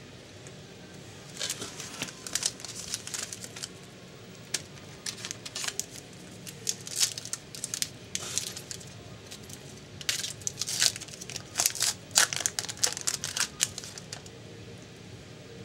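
Crinkling and tearing of hockey card pack wrappers as packs are opened by hand, in short bursts that come in three clusters.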